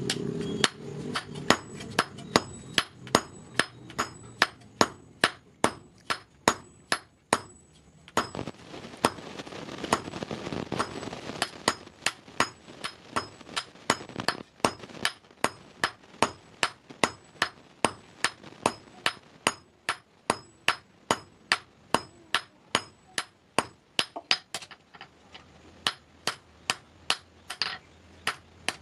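Hand hammer striking a red-hot iron bar on a block anvil in a steady rhythm of about two and a half blows a second, drawing the bar out flat. Each blow rings. The blows break off briefly near the end, then resume with a few more.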